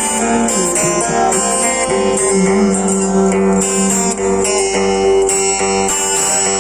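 Guitar playing continuously, plucked and strummed notes of a song accompaniment.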